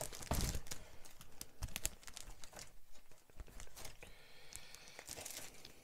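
Plastic bags crinkling and plastic kit sprues clicking against one another as hands sort through a model kit box: many small irregular clicks and rustles.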